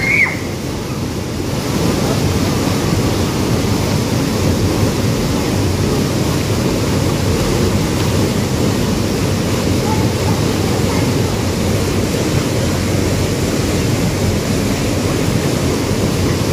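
Small waterfall and river rapids rushing steadily, a loud even roar of water. A brief rising shout comes right at the start.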